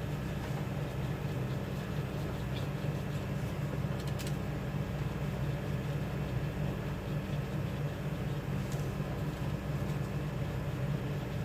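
A steady low hum, with a few faint light ticks.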